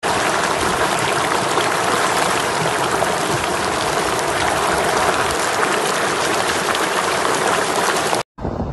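Muddy flash-flood water rushing loudly and steadily as it surges across a road in a wadi, cutting off suddenly near the end.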